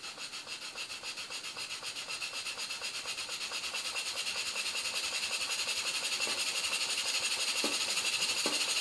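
Stuart model steam engine running on compressed air, its exhaust puffing in a quick, even hissing rhythm that grows steadily louder as the engine picks up speed toward its governed top speed.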